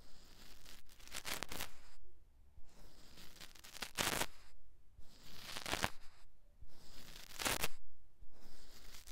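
Makeup brush swept across an iPad's microphone in slow strokes, about one every one to two seconds, each a soft rush of noise with quiet gaps between.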